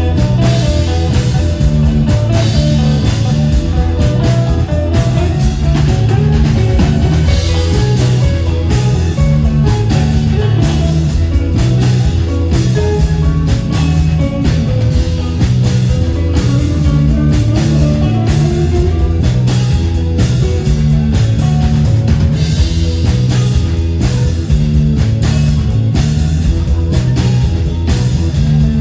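Live rock band playing loudly: electric guitars, bass guitar and drum kit, with a steady beat of drum hits over a heavy low end.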